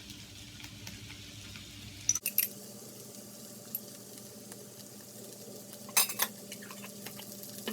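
Yam cakes and bean sprouts frying in a pan with a light sizzle, stirred with a utensil that clatters against the pan about two seconds in and again around six seconds. A steady low hum runs underneath from about two seconds in.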